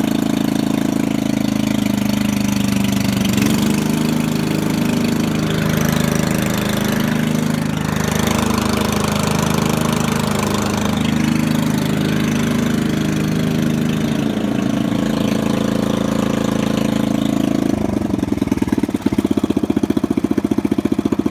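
The 5 hp Briggs & Stratton single-cylinder engine of a Landmark 5-26 riding mower running fast after a cold start from winter storage, its speed shifting a few times. About eighteen seconds in it drops to a slow idle, each firing stroke heard separately.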